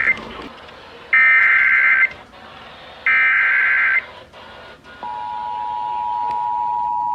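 Emergency Alert System header: the end of one burst of screechy SAME data tones, then two more one-second bursts a second apart, followed about five seconds in by the steady two-tone EAS attention signal that opens a warning broadcast.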